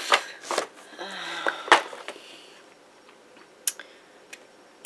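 Hand tools and brushes knocking and clattering against each other and the table as they are picked out of a tray: a few sharp knocks in the first two seconds, the loudest near two seconds in, then two fainter clicks near the end.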